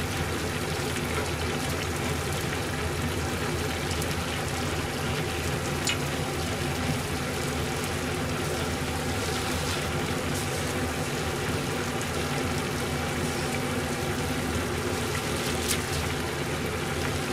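Pot of sukiyaki broth with beef and vegetables simmering on a gas burner: a steady bubbling hiss, with a few faint clicks.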